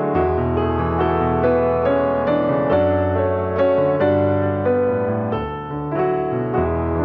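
Background piano music: a gentle melody over a bass line, notes changing about every half second.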